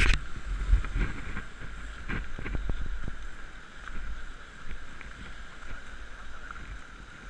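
Sea wind buffeting the microphone in a low rumble over the wash of waves breaking on rocks, with a few light knocks.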